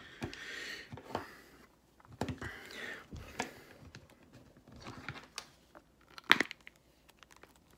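An iPhone being pressed into a plastic phone case by hand: rubbing and scraping of plastic with several clicks, the sharpest about six seconds in.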